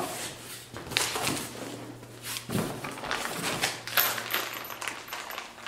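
Hands rummaging in a cardboard box and picking up a bag of U-bolt nuts and washers: rustling with irregular taps and light knocks, over a steady low hum.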